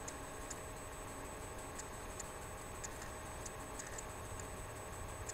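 Quiet room tone with a low hum and faint, light ticks at uneven intervals.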